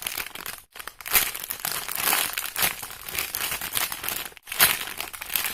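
Plastic wrapping of a squishy toy crinkling irregularly as it is handled, with two brief breaks, about a second in and near the end.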